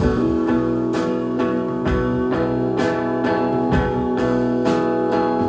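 Live band playing an instrumental passage: sustained guitar chords over a steady beat of about one drum stroke a second, with no singing.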